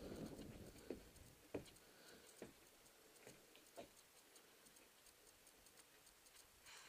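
Near silence with a few faint, irregular taps about once a second, like footsteps on a wooden plank floor.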